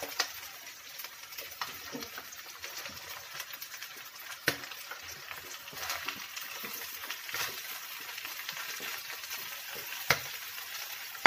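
Chicken and vegetables sizzling in a frying pan as potatoes and carrots are scraped off a plate into it with a spoon. A few sharp clicks of the spoon against the plate and pan stand out over the steady sizzle.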